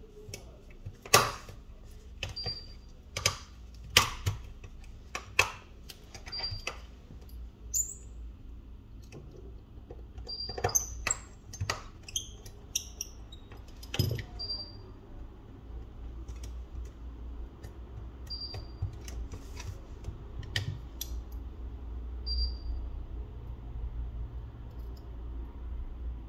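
Small hard clicks and taps of tools and plastic and metal phone parts being handled during a smartphone repair. A quick run comes in the first seven seconds, another cluster about ten to fourteen seconds in, then only scattered ticks, over a low steady hum.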